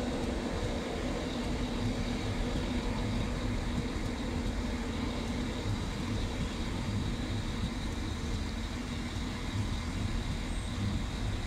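LNER InterCity 225 train (Class 91 electric locomotive with Mk4 coaches) pulling slowly out of a station: the coaches rumble steadily over the rails under a constant electric hum.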